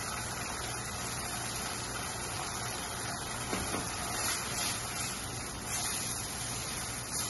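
Steady hiss of crushed-tomato sauce cooking in oil in a pan over a gas burner, with a few soft scrapes of a spatula stirring it.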